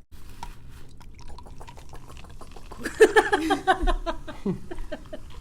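Non-alcoholic sparkling sangria being poured into a glass, the carbonated drink fizzing with a bubbly sound, with a brief vocal sound about three seconds in.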